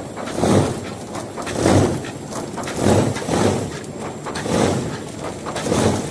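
L-shaped plastic file folder cutting machine running, with a stroke repeating evenly about every 1.2 seconds.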